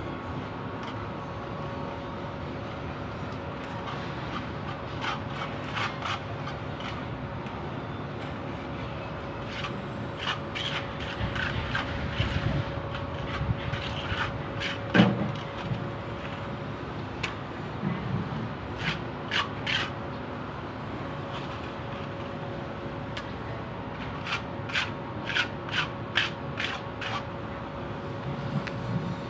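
Irregular scraping with sharp clicks and taps from hand work, coming in clusters, over a steady hum.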